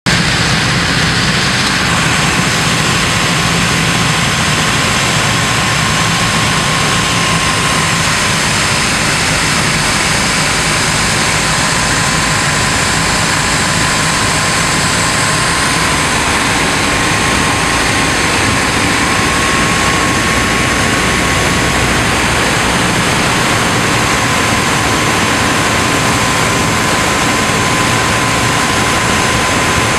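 Steady cabin noise of a light propeller airplane on its approach to landing: the engine's drone and rushing air, with a thin, even tone riding above.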